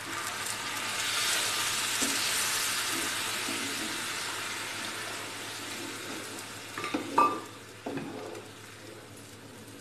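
Milk poured into a hot pan of ghee-roasted moong dal sizzles hard as it hits the fat. The sizzle swells in the first second and slowly dies away as the wooden spatula stirs. A few sharp knocks against the pan come near the end.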